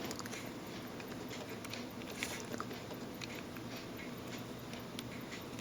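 Faint, scattered small clicks and taps of tweezers handling a tiny replacement coil and parts of a Ronda 751 quartz watch movement.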